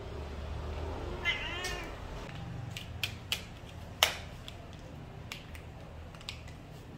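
A cat meows once, a short call that bends in pitch, about a second in. Then come a few sharp clicks and knocks, the loudest about four seconds in.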